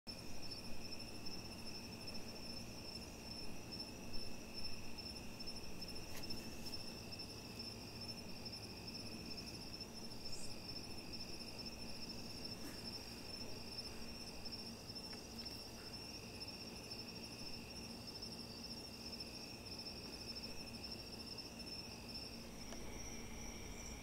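Crickets trilling steadily in a night-time chorus, one high pitch and one lower pitch going on together without a break. A few faint clicks sound here and there.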